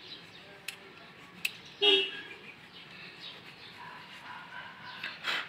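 A single short car horn toot about two seconds in, with a few sharp clicks around it.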